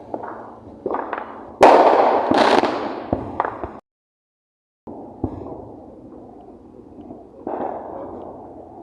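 Fireworks going off: several loud bursts with sharp crackling pops in the first half, a full second where the sound cuts out, then a quieter hiss and another burst near the end.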